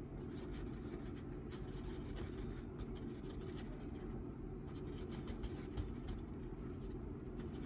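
Light scratching and small clicks of fresh glue being mixed up on a work surface, over a steady low hum.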